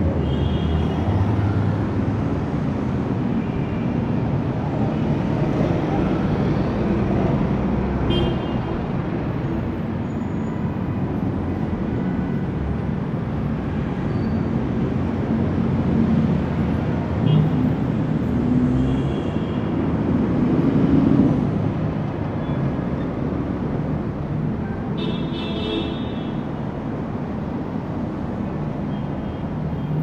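Fairly heavy city street traffic: a steady rumble of passing car engines and tyres, with a few brief high-pitched toots, the strongest about 25 seconds in.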